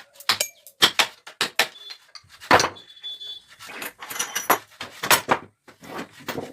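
Irregular series of sharp knocks from hammering on pallet wood, coming in short clusters with one louder blow partway through.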